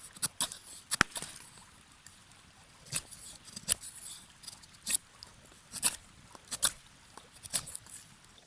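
Knife shaving a wooden branch while carving a spoon: short, crisp scraping strokes at an uneven pace, roughly one a second, over a faint steady hiss.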